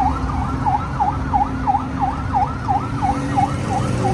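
Siren yelping: a rapid falling-and-rising wail repeating about three times a second, over a steady low rumble.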